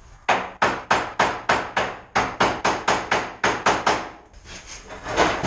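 Hammer blows on the trailer's steel frame in a quick, even run of about three to four strikes a second, knocking loose a bulkhead part held by rusted bolts. The blows stop briefly about four seconds in, then the knocking starts up again, denser.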